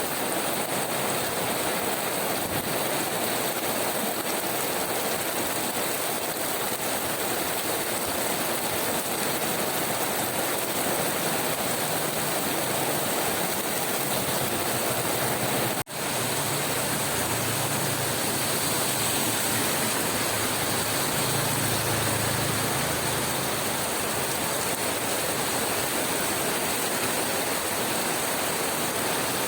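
Steady, continuous rainfall on leaves and earth, an even hiss, with a brief dropout about halfway through.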